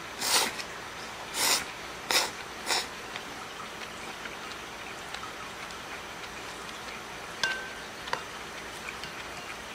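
A man slurping cold ramen noodles with chopsticks: four quick slurps in the first three seconds. Near the end, two light clicks of chopsticks against the ceramic bowl, the first with a brief ring.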